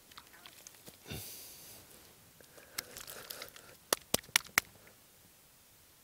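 Faint rustling and handling noises as dead newborn lambs are lifted and laid on the grass, with a quick run of four sharp clicks about four seconds in.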